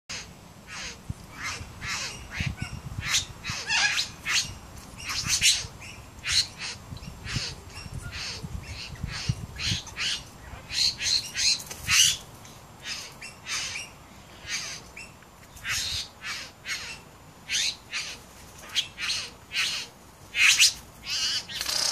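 Male satin bowerbird in courtship display, giving a long irregular run of short, harsh, rasping calls mixed with imitations of other birds, about one call a second.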